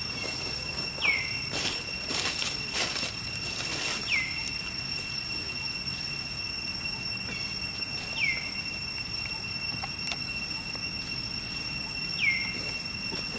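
Four short, high squeaks from an animal, each falling sharply in pitch, a few seconds apart, with some dry rustles in the first few seconds over a steady high-pitched whine.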